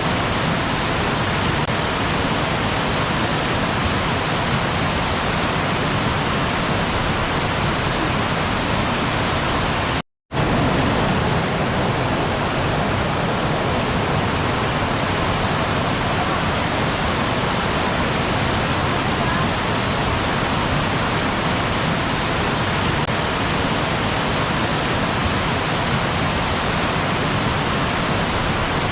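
Waterfall: a steady, even rush of falling water. It cuts out completely for a split second about ten seconds in, then carries on as before.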